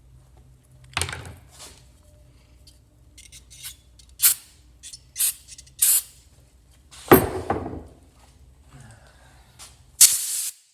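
Small metal carburetor parts being handled on a workbench: a string of sharp clicks and clinks with louder knocks about a second in and about seven seconds in, then a short spraying hiss near the end.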